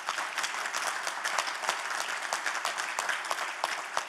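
Audience applauding: many hands clapping together in a dense patter that begins to thin out near the end.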